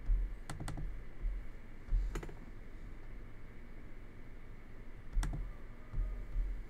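A few sharp clicks at a computer: a quick pair about half a second in, another near two seconds and one more about five seconds in. Soft low thuds from the desk come between them.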